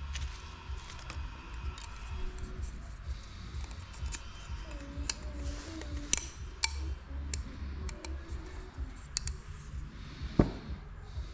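Irregular sharp clicks and taps, the loudest about six and ten seconds in, over a steady low hum and faint background music.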